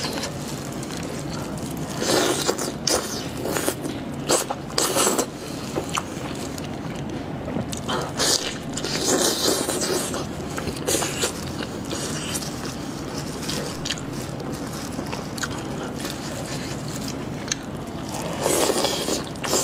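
Close-miked eating sounds: plastic-gloved hands pulling apart braised sheep's head meat, with biting and chewing, in separate noisy bursts every few seconds.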